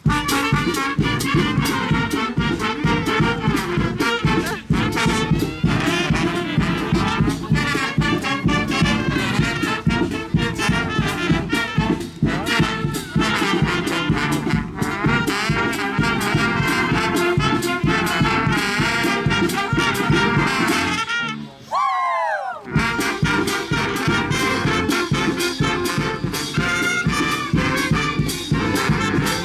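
Brass band playing. Around two-thirds of the way through the music breaks off for about a second, with a short rising sliding note, then starts again.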